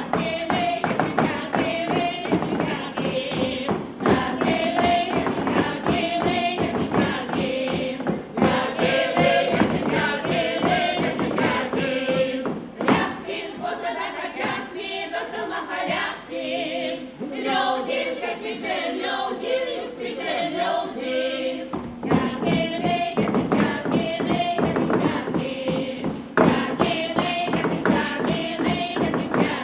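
Veps folk choir singing a folk song, many voices together with held, wavering notes, over a run of short knocking taps.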